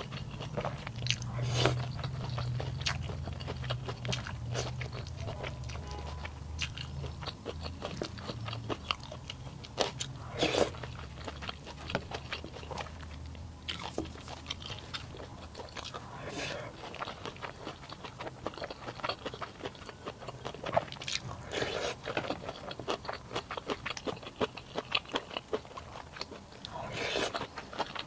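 A person chewing and biting food close to the microphone: steady wet mouth clicks with bursts of crunching, and a few louder noisy swells spread through.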